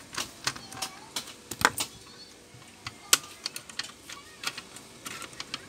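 Irregular sharp clicks and taps of a small screwdriver working a screw on a graphics card's board, then the card knocking lightly as it is picked up and handled.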